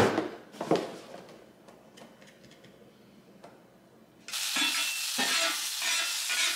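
A knock of the cardboard box being handled, then little sound; about four seconds in, sliced onions start sizzling on a hot flat-top griddle while a metal spatula scrapes and turns them.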